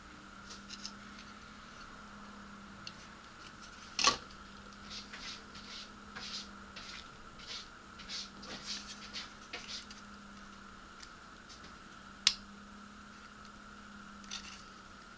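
Plastic model-kit parts handled and fitted together by hand: light scratching and tapping, with two sharp clicks about four seconds in and about twelve seconds in, over a steady faint hum.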